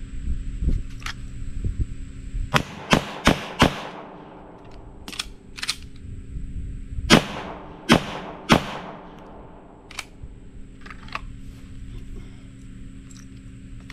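Pistol shots from a Sig Sauer Spectre Comp 9mm: a fast string of four shots about a third of a second apart, then two fainter cracks, then three more loud shots a little over half a second apart, and one weaker shot near the end.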